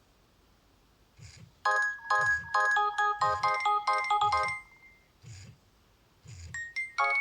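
Nokia N70 mobile phone ringtone: a synthesised melody of quick staccato notes starts about a second and a half in, plays for about three seconds, and ends on a held note. Near the end a new phrase of rising notes begins.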